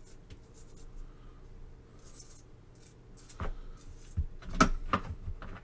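Quiet at first, then from about halfway a handful of short, sharp clicks and taps: a toothbrush and pliers knocking against a small diecast toy car body and a plastic tray.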